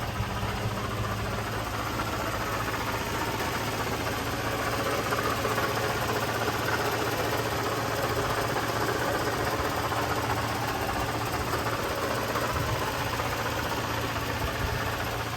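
1997 Toyota Land Cruiser FZJ75's 4.5-litre straight-six petrol engine idling steadily while warming up just after a cold start.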